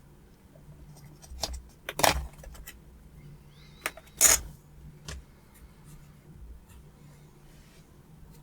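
Sharp clicks and small metallic taps of a RAM module being unclipped from a laptop's memory slot and handled, the loudest about four seconds in, over a faint low steady hum.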